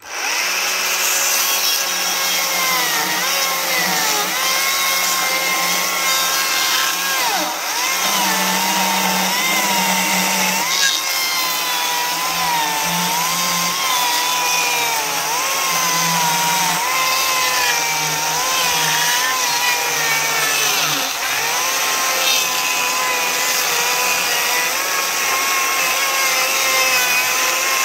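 Stihl battery-powered chainsaw cutting through an old wooden post. The motor's whine starts at once, then dips and recovers over and over as the chain loads up in the wood; the chain is a little dull.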